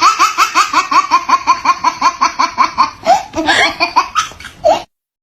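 High-pitched, cartoon-style laughter sound effect: a rapid run of 'ha-ha-ha' pulses, about eight a second, breaking into a few irregular squeals after about three seconds. It cuts off abruptly near the end.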